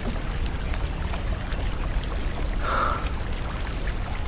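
Steady rush of flowing water, with a short faint sound about three seconds in.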